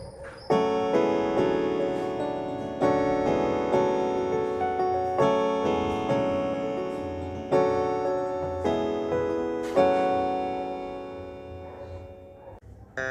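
Casio CT-S300 keyboard playing a piano-type voice: chords struck about once a second, each ringing and decaying, dying away near the end.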